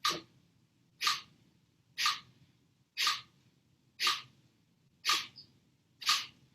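Kapalabhati breathing: short, forceful exhalations through the nose, about one a second, seven in all, each a sharp puff that fades quickly.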